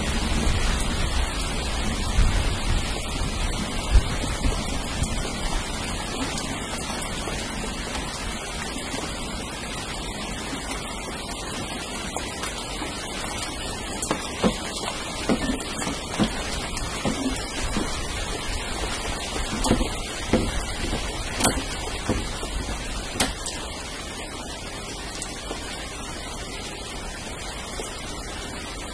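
Steady rain falling, with a low rumble of thunder dying away over the first few seconds. Scattered sharp drips tap close by through the middle of the stretch.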